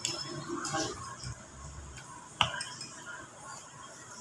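Metal spoons and forks clinking and scraping against ceramic bowls and plates, a few separate clinks with one sharp one about two and a half seconds in.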